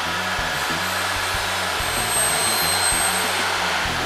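A loud, steady rushing noise, like a blower, over the bass line of background music.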